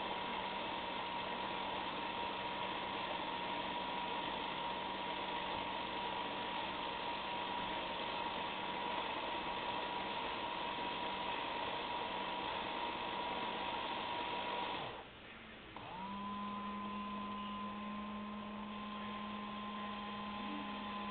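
Robo Kitty 2000 self-cleaning litter box's drum motor running with a steady hum and whine as the globe rotates back toward its upright position at the end of its cleaning cycle. The motor stops about 15 seconds in and starts again a second later with a short rising whine.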